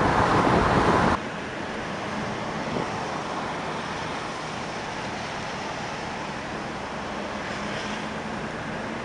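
Car driving along a road: wind and road rush, loud for about the first second, then cutting abruptly to a steadier, quieter rush with a faint low engine hum.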